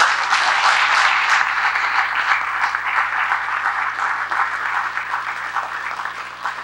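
Lecture-hall audience applauding, many hands clapping together, dying away gradually over the last couple of seconds.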